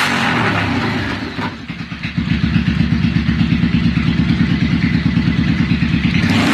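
Honda Shadow V-twin motorcycle engine coming down off a throttle blip and settling about two seconds in to an idle with a rapid, even pulsing beat.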